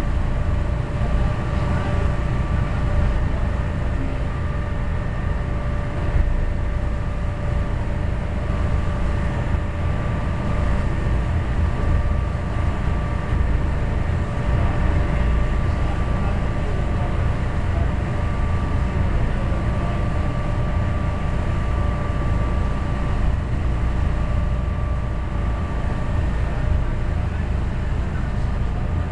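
A boat's engine running steadily under way: a constant low rumble with a faint steady whine above it.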